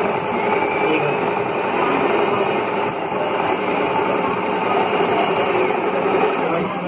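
Electric sewing machine running steadily, its needle stitching a row of red decorative stitches.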